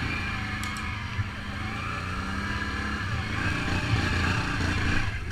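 Can-Am ATV engine running at low revs, fairly steady with small rises and falls, a little louder near the end.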